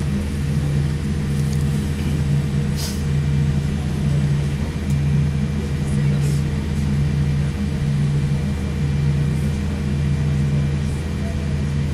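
Boeing 787 Dreamliner cabin noise while taxiing: a steady low drone from the engines and air system, pulsing gently a little more than once a second. A few faint short clicks come through.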